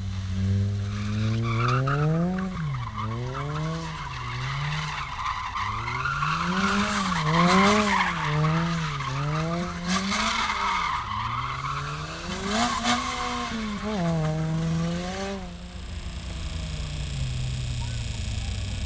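A car engine revving up and down over and over while its tyres squeal and skid on the tarmac, for about fifteen seconds. Then the squealing stops abruptly and the engine note falls away.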